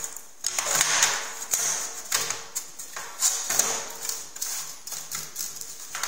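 Casing of a Nortel BCM50 unit being handled: the cover pressed down into place, then the unit turned over and set on the table, giving a run of clicks, scrapes and knocks.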